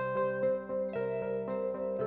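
Background music: a soft instrumental melody of plucked or keyboard notes.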